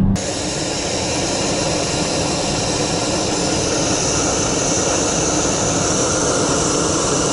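Portable gas canister stove burning under a tall pot: the steady hiss of the burner flame.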